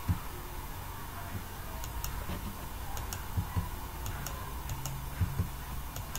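Scattered clicks of a computer mouse and keyboard, a few a second at most and irregular, over a steady low hum.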